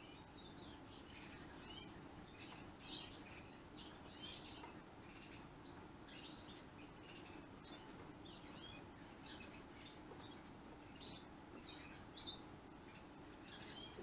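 Gloster canary chirping faintly: many short high calls in an irregular, quick series.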